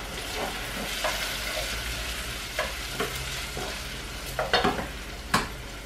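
Green peppers sizzling as they fry in a pan, stirred with a wooden spoon. A few sharp knocks of the spoon against the pan, the loudest near the end.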